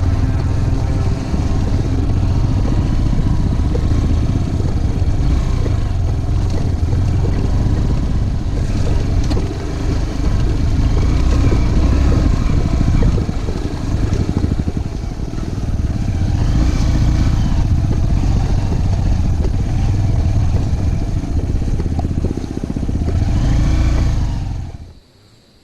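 Motorcycle engine running while riding, its pitch rising and falling a few times with the throttle; the sound cuts off abruptly near the end.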